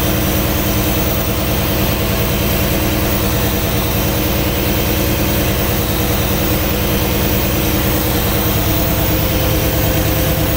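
The 5.7-litre TBI V8 of a 1995 GMC Suburban idling steadily with its valve cover off, while an intake rocker arm nut is slowly backed off to find where that valve starts clacking. The tone shifts slightly near the end.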